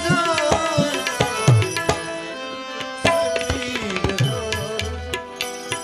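Tabla playing a rhythmic interlude, with gliding bass-drum strokes, over a steady melodic instrumental accompaniment in an Indian ghazal/bhajan.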